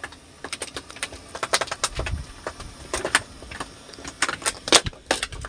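Close-up handling noise of a hand line and freshly caught fish on a boat: irregular clicks, taps and rustles, with a low thump about two seconds in and a sharp click near the end that is the loudest.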